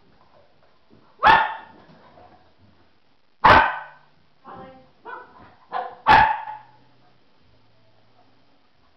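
Dog barking during rough play with another dog: three loud, sharp barks spread over about five seconds, with softer yips between the second and third.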